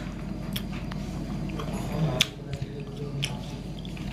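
A few sharp clicks and taps, about three, over a low steady hum.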